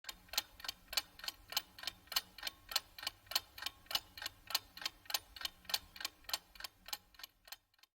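Clock ticking steadily, about three ticks a second with every other tick louder, stopping shortly before the end.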